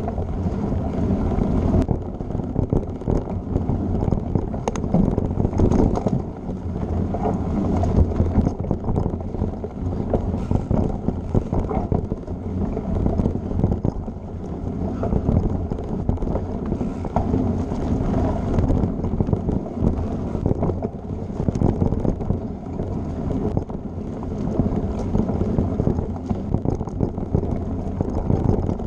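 Mountain bike riding fast over a dirt singletrack, heard through a bike-mounted action camera: wind buffeting the microphone over a steady rumble of tyres on dirt, with frequent small rattles and knocks as the bike jolts over roots and bumps.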